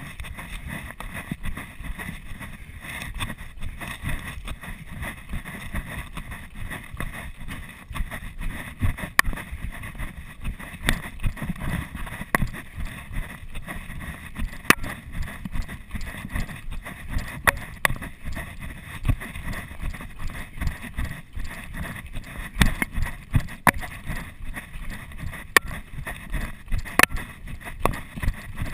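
Footsteps of a runner going down a dirt-and-gravel trail, an uneven series of crunching footfalls over a low rumble of wind and body movement, heard through a chest-mounted GoPro.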